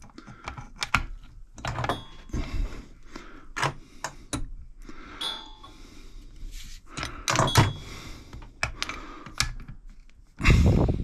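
Ratcheting clicks of a torque wrench tightening the cylinder nuts on a motorcycle engine, with scattered small metallic clicks and knocks and one louder thump near the end.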